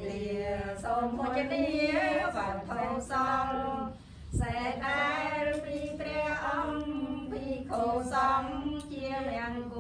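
A group of women chanting a Buddhist prayer together in unison, in long held tones, with a short break for breath about four seconds in.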